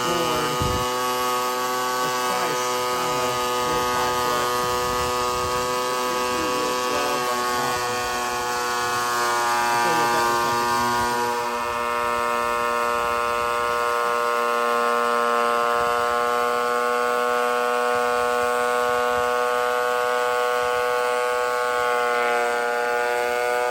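Ridgid benchtop thickness planer running with a steady motor whine, its pitch sagging slightly twice as boards feed through the cutterhead.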